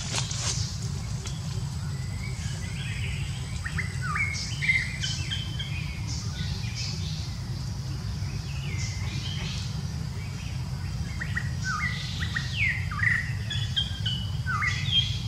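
Small birds chirping in quick, downward-sweeping notes, in scattered bursts that grow busier near the end, over a steady low rumble.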